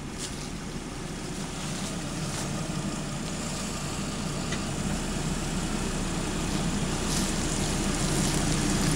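Hummer's engine running steadily as it is pulled forward, growing gradually louder.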